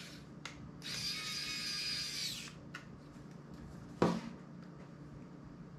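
Electric pen screwdriver running, a small motor whine, while it drives the tiny screws of a flip phone. There is a short burst, then a steady run of about a second and a half that stops. About four seconds in comes one sharp click.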